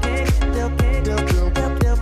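Background music with a steady kick drum about two beats a second under held chords.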